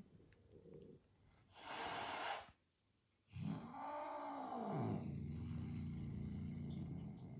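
A cat hisses for about a second, then, after a short pause, yowls with a pitch that rises and falls and runs into a low, steady growl: hostile warning sounds at another cat.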